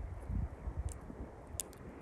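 Small campfire of pine twigs burning, with a few sharp crackles about a second in and again near the end, over a low rumble of surf and wind.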